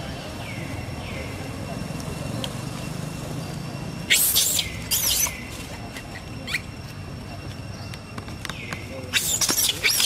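Long-tailed macaques screaming: shrill calls that drop in pitch. There are two loud ones about four and five seconds in, and a rapid run of several more near the end.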